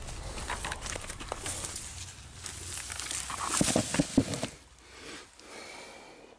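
Rustling and crackling of dry ground debris being disturbed, with many small sharp clicks. It is loudest a little after halfway, then dies down to a faint rustle near the end.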